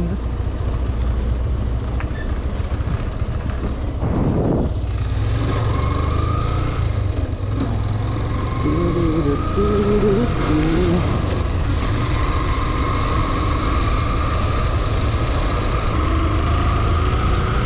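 Motorcycle engine running as the bike pulls away from a stop and accelerates slowly along a rough dirt road, over a steady low rumble of wind and road noise. The engine note climbs gradually from about six seconds in.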